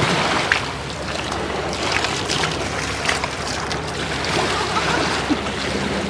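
Water gushing out of a drainpipe and splashing onto rocks and a river otter, a steady rush broken by many irregular sharper splashes as the otter moves in the stream.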